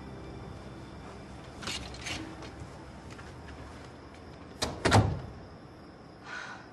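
A door being shut: a sharp knock and then a heavier thud right after it, about five seconds in, with a couple of faint clicks a few seconds before.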